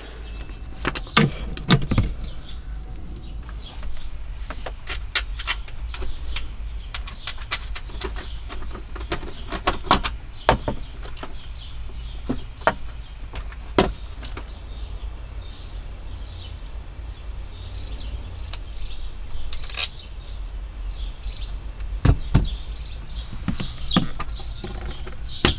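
Scattered clicks and knocks of a socket wrench and wires being worked on a DC fuse block's screw terminals, over a steady low hum. Birds chirp faintly outside in the second half.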